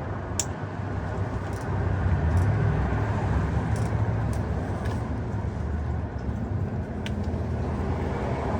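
Steady low background rumble with a few faint, sharp clicks scattered through it, small carburetor parts being handled.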